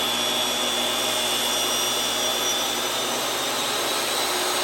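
Table saw running steadily under load, its blade cutting warped cherry that pinches it and makes it smoke, with a thin high whine over the motor noise.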